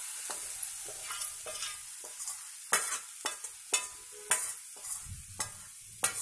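Ginger paste scraped from a steel mixer-grinder jar into hot oil and chili powder, sizzling, while a spoon clinks and scrapes against the steel jar again and again.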